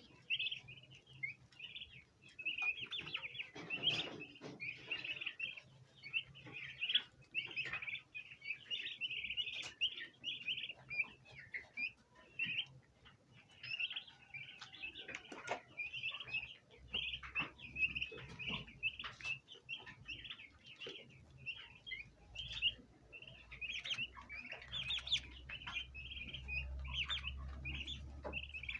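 A group of bronze turkey poults peeping, many short high chirps overlapping without a break. A faint low hum sits underneath from about halfway through.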